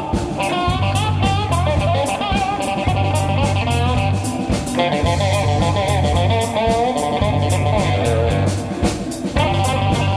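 Amplified cigar box guitar played with a slide, a bluesy lead line with gliding, bending notes, over a steady bass line and a drum beat with a regular cymbal tap.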